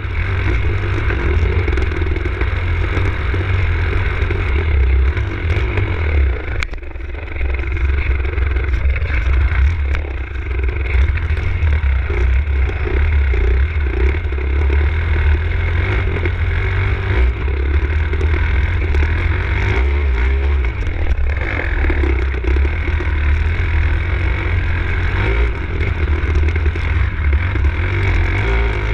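Enduro dirt bike engine running under changing throttle as the bike rides a rough, muddy track, with a heavy low rumble. The throttle eases off briefly about seven seconds in and again around ten seconds.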